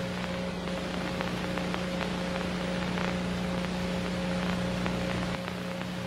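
A steady low electrical hum under a hiss of static with scattered crackles. The deepest rumble drops out about five seconds in.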